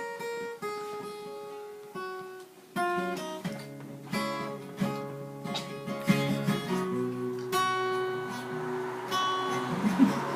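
Acoustic guitar playing: a few single picked notes, then strummed chords in a steady rhythm from about three seconds in.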